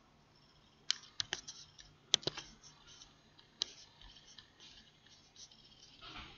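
Sharp, irregular clicks from a computer mouse and keyboard, several in quick succession about a second in and again near two seconds, then a few scattered ones.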